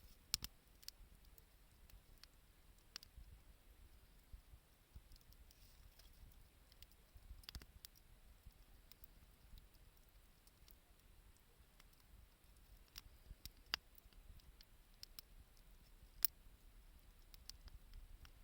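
Wood fire crackling faintly: sparse, irregular sharp pops and snaps, a few of them louder, over a quiet hiss.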